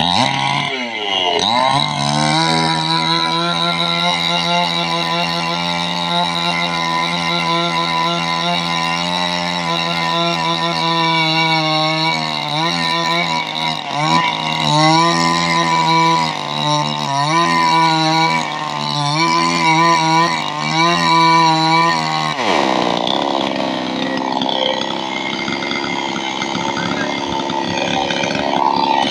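Chainsaw engine running. Its pitch drops in the first couple of seconds, then holds steady, and in the second half it dips and recovers over and over. About three-quarters of the way through, the pitch sweeps up and the sound turns rougher until the end.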